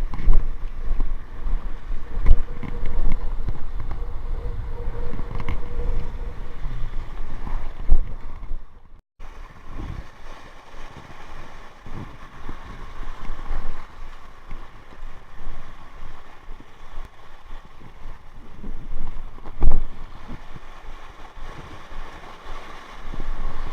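Wind buffeting the microphone over a very rough sea, with waves surging on the rocks in gusts and a few sudden louder surges. It cuts out briefly about nine seconds in and continues quieter after.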